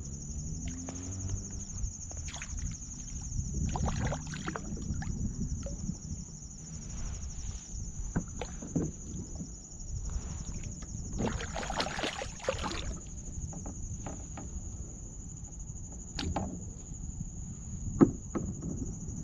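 Handling sounds aboard a plastic kayak as a small catfish is pulled in and lifted aboard: scattered knocks and light splashing, a longer rustling stretch about eleven seconds in, and one sharp knock near the end. A steady high-pitched whine runs underneath.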